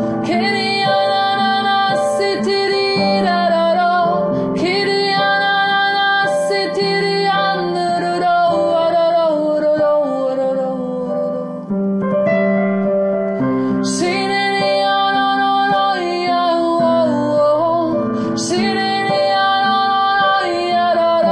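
Piano playing slow, sustained chords struck afresh every two seconds or so, with a woman singing a wordless, gliding melody over them.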